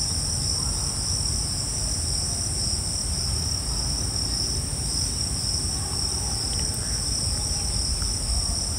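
Insects chirring in a continuous high-pitched drone, over a low rumbling background noise.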